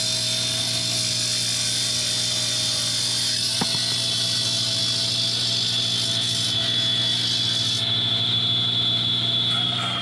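Motocut excavator-mounted hydraulic saw head running its circular blade through a concrete pole: a steady grinding hum with a high, even whine over it. The hiss above the whine thins out about two seconds before the end.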